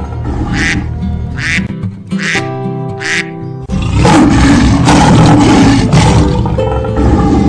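Background music with a duck quacking over it, growing louder about halfway through.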